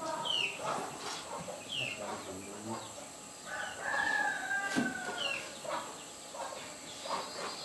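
A rooster crowing once, a long call in the middle that slowly falls in pitch, among short high chirps. A few sharp knocks of chopping with a large blade.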